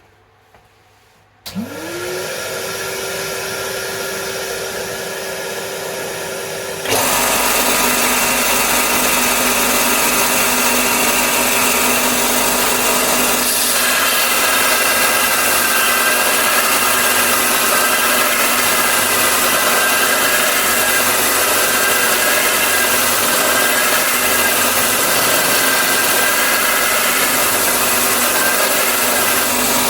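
Two machines switch on one after the other and then run together: a direct-drive belt and disc sander (Bucktool BD4603) and a Henry vacuum cleaner used for dust extraction. The first starts about a second and a half in with a quickly rising whine that settles into a steady hum. About seven seconds in, the second comes on with a sudden jump to a much louder, steady running noise, and a wavering higher tone joins a few seconds later.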